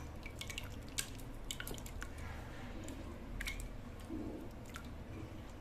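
Faint, irregular small clicks and squishes of homemade jelly slime being handled.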